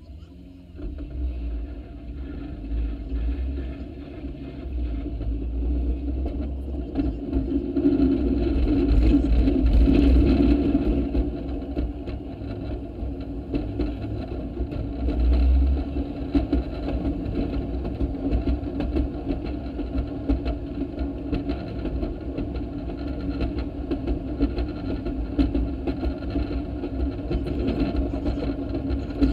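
Railroad speeder (track motorcar) pulling away from a stop and running along the rails: its small engine and wheel noise pick up about a second in, are loudest from about eight to eleven seconds in, then run steadily.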